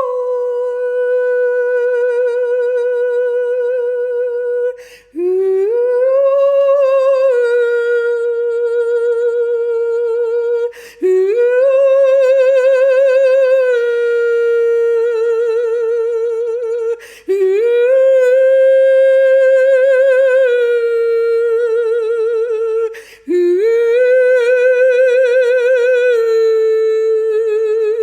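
A single voice sings wordless, sustained meditative tones, a cappella. It sings about five long notes, each several seconds long, with short breaths between them. Each note slides up at its start and then settles into a held tone with a wavering vibrato.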